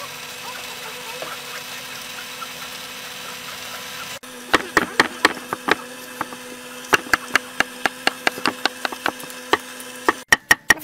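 Cleaver chopping watermelon flesh into small cubes on a wooden chopping board: an irregular run of sharp knocks that starts abruptly about four seconds in. Before it, a steady low hum.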